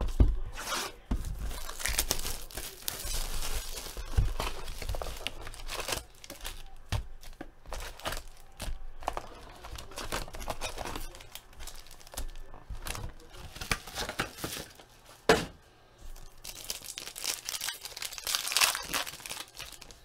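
Packaging of a 2014 Bowman Chrome football card box and its packs being torn and crinkled by hand, with a few soft thumps as the packs are handled.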